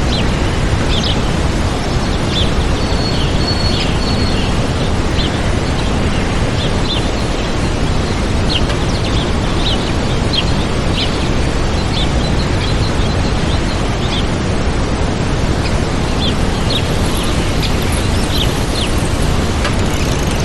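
Waterfall's steady rush of water, with small birds chirping over it in short high calls.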